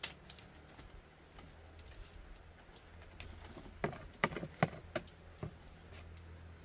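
A few sharp clicks and taps, chopsticks knocking against a plastic tub while scooping out a filling, bunched together about four seconds in, over a steady low hum.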